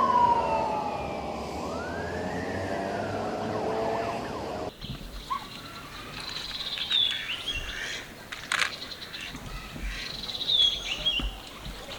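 A siren wailing with slowly falling pitch that cuts off suddenly about five seconds in, followed by quieter outdoor background with a few short, high bird-like chirps.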